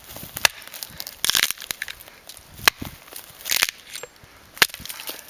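Bahco axe chopping into the side of a resinous pine stump, knocking wood chips loose: three sharp strikes about two seconds apart.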